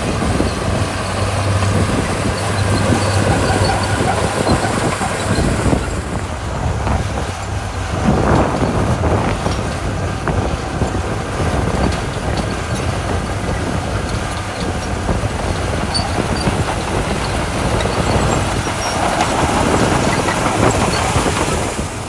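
Small crawler bulldozer's diesel engine running steadily under load while its blade pushes and spreads a pile of gravel.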